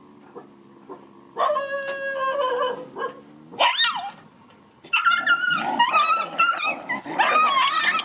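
Dogs scuffling: a low growl, then a long whine about a second and a half in, a short sharp yelp near four seconds, and dense high-pitched yelping and whining through the last three seconds.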